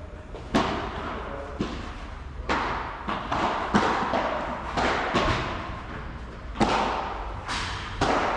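Padel rally: the ball is struck back and forth by solid padel rackets and bounces on the court, about a dozen sharp pops at uneven intervals, each with a short echo.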